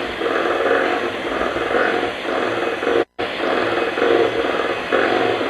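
Cake batter being mixed in a bowl, with repeated scraping swishes about twice a second and a brief dropout about three seconds in.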